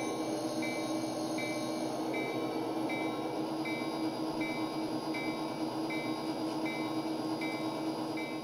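Kato Sound Box playing back a diesel locomotive sound for the MP36PH through a small speaker. The engine runs steadily while a locomotive bell rings evenly, a little more than once a second, as the train pulls out.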